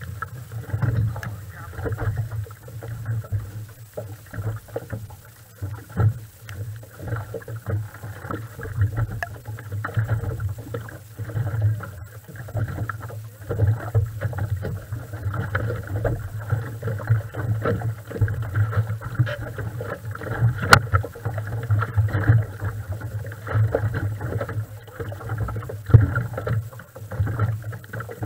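Muffled, uneven low rumble of a race boat's outboard engine idling, rising and falling throughout.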